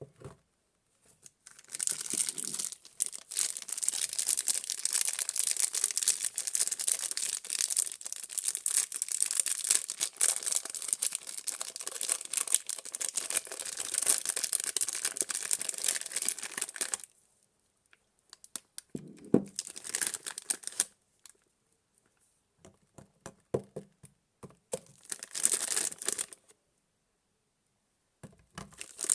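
Soap packaging being torn open and crumpled by hand: a long stretch of continuous crinkling and tearing, then two shorter bursts of rustling after a pause.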